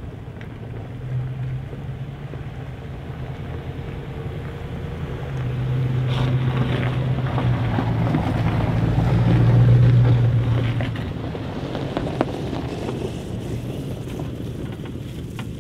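A vehicle driving: a steady low engine hum with road and wind noise. It swells louder for several seconds around the middle, then settles back.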